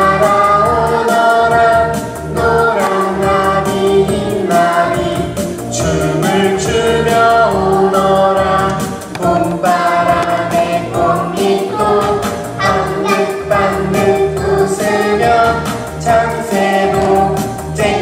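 Children's choir singing a song about butterflies over a backing track with a steady beat.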